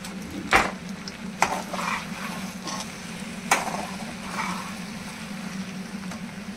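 Slotted metal spatula stirring macaroni in a non-stick kadhai: soft scraping in the pan with three sharp knocks of the spatula against the pan, over a steady low hum.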